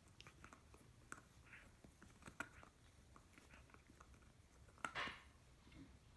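Faint gnawing of a German Shepherd puppy chewing a bone: irregular small clicks and crunches, with a louder crunch about five seconds in.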